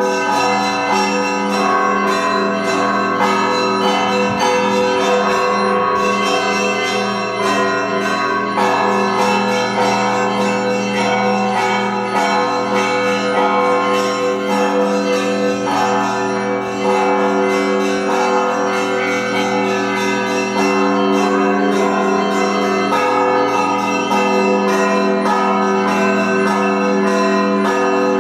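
Russian Orthodox bell ringing (zvon) from the bells of the Trinity-Sergius Lavra: many bells sounding together, with deep bells humming steadily beneath quick, repeated strikes of smaller bells.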